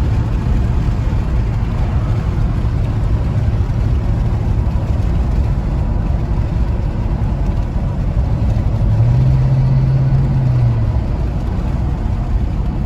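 2007 Chevrolet Silverado pickup driving under way on a test drive of its freshly rebuilt 4L60E automatic transmission, engine and drivetrain running steadily after the shift into fourth gear. About nine seconds in, the engine note rises and holds for a couple of seconds, then settles back.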